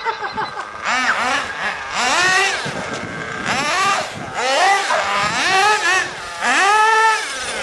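Small two-stroke nitro glow engine of an RC buggy revving hard, its high-pitched whine rising and falling about once a second as the throttle is blipped.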